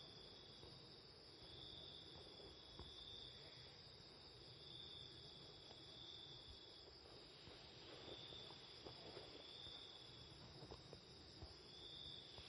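Faint insect chirping, a high trill pulsing about once a second, over a steady background hiss.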